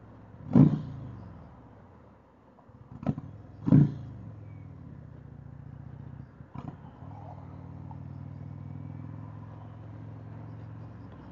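Motorcycle V-twin engine revved in two sharp throttle blips about three seconds apart, each dropping back quickly. In the second half it runs steadily at low revs.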